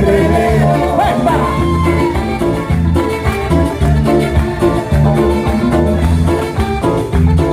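Live cumbia band playing over a PA system, with a steady bass-driven beat and melodic lines on top.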